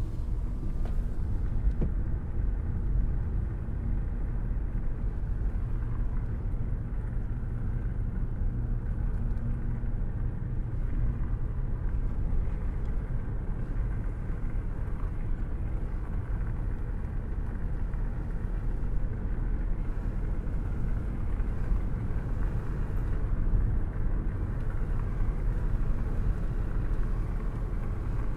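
Car cruising at a steady speed, heard with a hand held out of the open window: a steady low rush of wind and road rumble.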